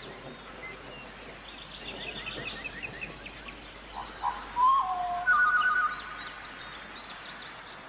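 Birds singing over a steady outdoor hiss: a quick run of high chirps, then loud, clear whistled notes about four to six seconds in.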